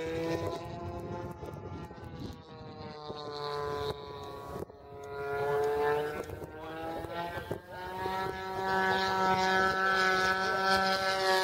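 Radio-controlled model airplane flying overhead, its motor and propeller making a steady buzzing drone. The pitch falls and rises several times as it throttles and passes, and the sound grows louder toward the end.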